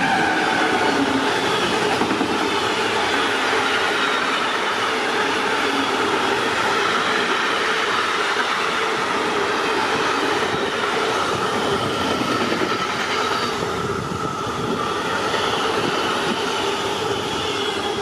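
A train passing close by: a steady, loud rolling noise of wheels on rail, with thin high squealing tones from the wheels that waver in pitch throughout.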